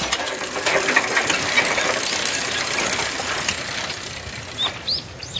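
Cicadas buzzing in a dense, rapidly pulsing drone that slowly fades, with a few short high chirps near the end.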